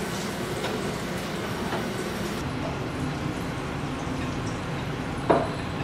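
Butter and turkey pan juices sizzling steadily in an electric skillet as the seared turkey-breast pieces are spooned out. A short knock near the end.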